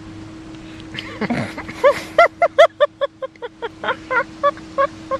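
A baby crying in short, rhythmic wails, about three a second, starting about a second in and growing weaker toward the end, over a steady low hum.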